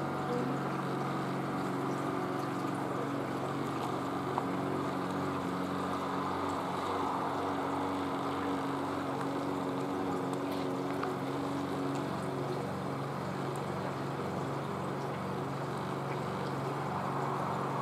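A steady engine-like drone: a low hum with a rushing noise over it, unchanging throughout.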